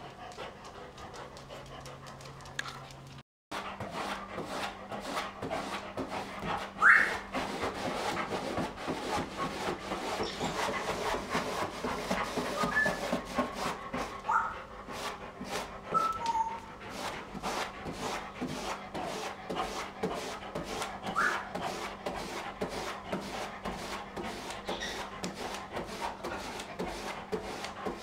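Heavily pregnant Doberman bitch panting rapidly and steadily, with a few brief whimpers, the loudest about seven seconds in. Heavy panting of this kind, alongside digging at the bedding, is typical of a bitch about to whelp.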